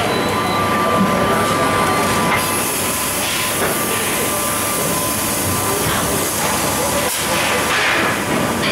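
Multivac R330 thermoforming packaging line running: a steady machine din with a thin high whine, joined about two seconds in by a high hiss.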